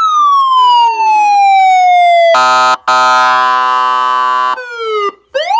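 Loud electronic police siren played through a Rockford Fosgate car-audio amplifier and speakers. It gives a slow falling wail, then about two seconds of a steady buzzing horn tone with a brief cut, then a quick falling sweep and a sharp rising yelp near the end.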